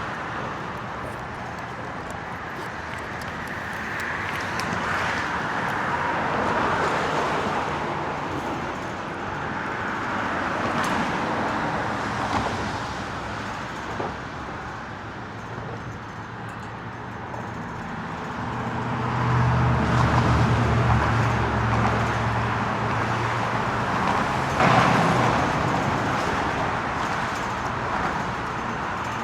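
Road traffic passing, swelling and fading as cars go by, with a heavier vehicle's low engine note loudest about two-thirds of the way through. A few sharp clicks stand out above it.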